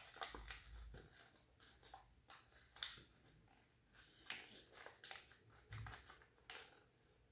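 Faint rustling and crinkling of a 6-inch sheet of origami paper being folded and squeezed by hand, in scattered short bursts.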